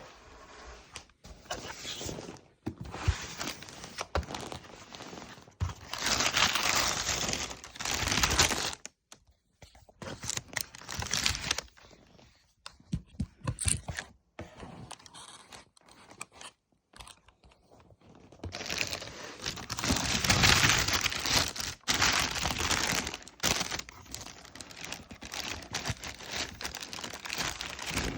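Paper packaging crinkling and rustling in irregular bursts, with occasional light knocks, as a sneaker box is unpacked. The longest rustles come about a quarter of the way in and again past the middle.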